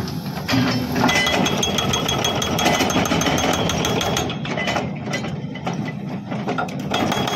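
Excavator-mounted hydraulic breaker hammering rock in rapid, even blows, with the excavator's engine running underneath.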